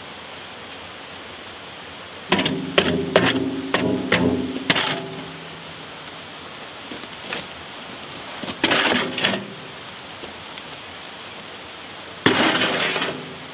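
Mason's trowel working mortar in a metal wheelbarrow: a run of sharp clanks with a short metallic ring a couple of seconds in, another cluster about halfway through, and a gritty scrape near the end, over a faint steady hiss.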